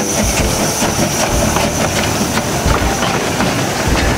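Narrow-gauge (600 mm) steam locomotive running close by, with loud hissing steam from its open cylinder drain cocks over chuffing exhaust beats and wheel clatter.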